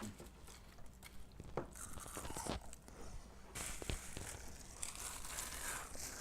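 Crisp dehydrated kale chips crunching and crackling in irregular bursts as they are eaten, faint, with a few sharp clicks.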